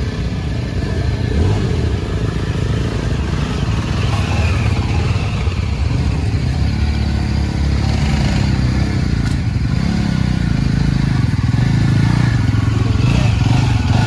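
Single-cylinder Yezdi motorcycle engine working at low speed on a rough off-road trail, its revs rising and falling with the throttle.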